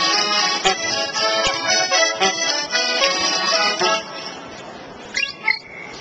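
Small accordion playing a tune in chords, which stops about four seconds in. A few short bird-like chirps follow near the end.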